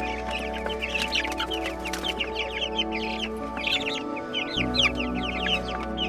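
A flock of young broiler chicks peeping continuously, a dense overlapping stream of short, high, downward-sliding cheeps, with background music underneath.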